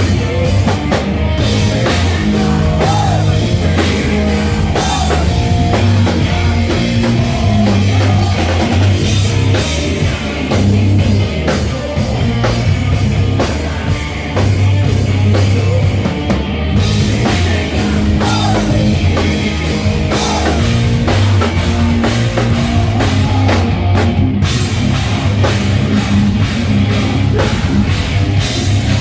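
Rock band playing loudly, with a driving drum kit, distorted guitars and steady bass.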